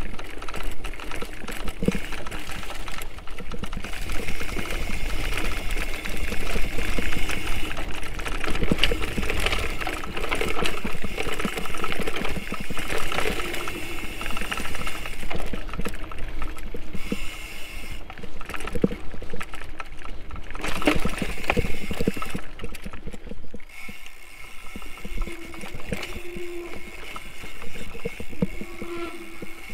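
Mountain bike ridden over a rough trail: a low wind-and-tyre rumble with frequent rattles and knocks, and a steady high drone that comes and goes.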